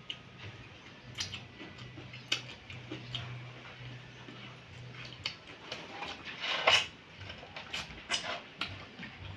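Close-up mouth sounds of eating by hand: wet chewing and repeated lip-smacking clicks, with a louder smack about two-thirds of the way in. A faint, steady low hum runs underneath.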